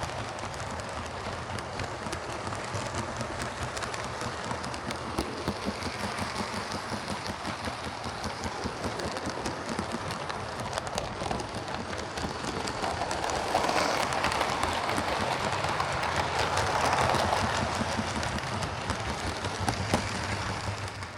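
Lima OO gauge Class 37 model diesel locomotive, converted to a can motor, running along model railway track: a steady motor whirr with wheel rattle and scattered clicks. It grows louder from a little past halfway, peaks, then eases off near the end.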